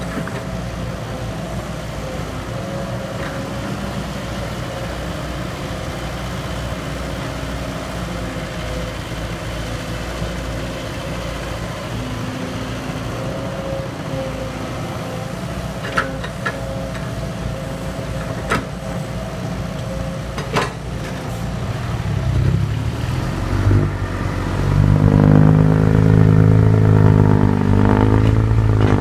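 Diesel engine of an excavator running steadily, with a few sharp clanks past the middle. In the last few seconds it gets louder and its pitch rises and falls.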